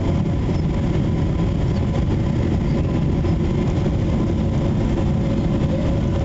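Boeing 777 cabin noise during landing: a steady low rumble of engines and airflow, with a faint steady whine over it.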